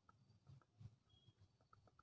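Near silence broken by a few faint clicks from the buttons of an iKall K65 flip phone's keypad as its navigation key is pressed.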